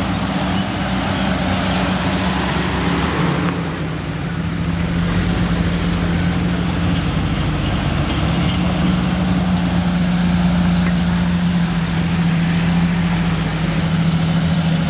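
Jeep off-roaders (a Wrangler, then a Cherokee) driving slowly past one after another on a dirt track, engines running steadily at low speed. The sound changes abruptly about three and a half seconds in.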